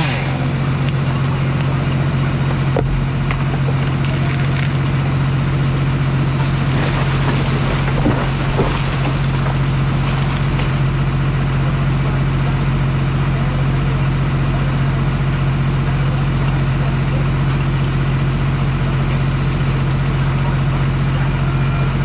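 John Deere 700-series crawler dozer's diesel engine running steadily at idle, heard from the operator's cab, with a couple of brief knocks about eight seconds in.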